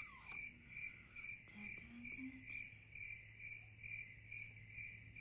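A faint high-pitched chirp repeating evenly about twice a second, over a low steady hum.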